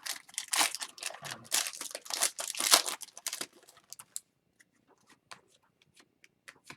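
Crinkling and tearing of a plastic-foil trading card pack wrapper being handled and opened, for about three and a half seconds, followed by a few faint scattered clicks.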